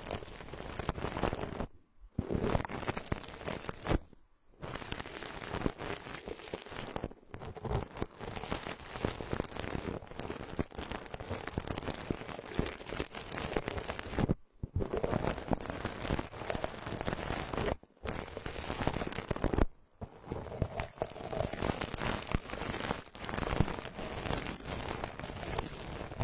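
Brush bristles worked over a binaural microphone for ASMR: a dense, crackling rustle, broken by several brief silent gaps.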